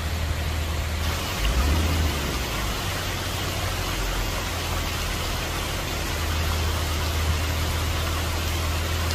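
Water running down a glass water-wall fountain and splashing into its pool, a steady rushing hiss that grows brighter about a second in, over a steady low hum.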